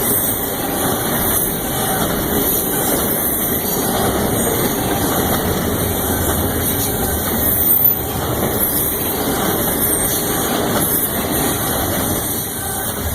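Union Pacific train's diesel locomotives running past with a steady, loud engine rumble; no horn sounds.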